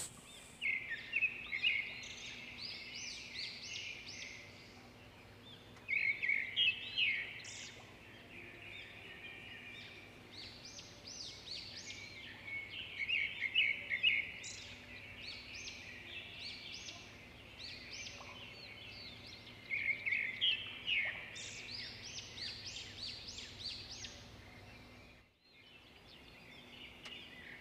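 Small birds chirping in repeated bursts of quick high chirps over a faint steady low hum, with a brief dropout near the end.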